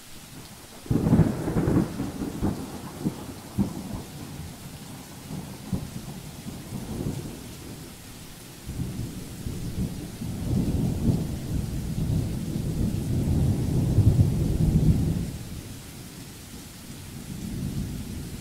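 Rolling thunder: a sudden crack about a second in that rumbles on unevenly, a longer rumble that swells and dies away about three quarters of the way through, and a softer rumble near the end, over a steady hiss.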